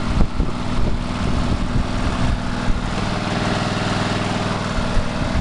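A 1985 Murray push mower's single-cylinder Briggs & Stratton engine running at a steady speed, just cold-started after sitting unused for a year.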